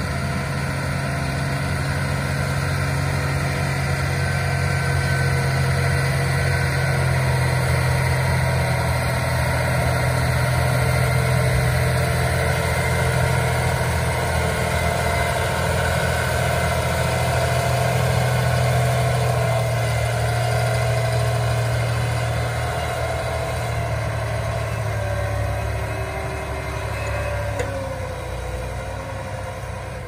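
John Deere 8335RT crawler tractor's six-cylinder diesel engine running steadily under load as it pulls a tillage implement through the soil. It grows louder as the tractor passes close and falls off in the last few seconds, when a wavering higher whine comes through.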